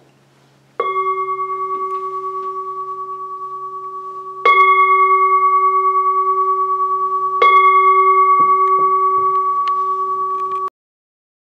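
Large standing singing bowl struck three times, about three to four seconds apart. Each strike rings on with a slow wobble over the ringing of the one before, until the sound cuts off suddenly near the end.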